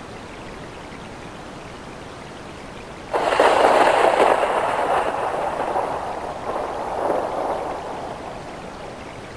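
Steady rain falling, then about three seconds in a sudden loud thunderclap that fades over about five seconds, swelling once more before it dies back into the rain.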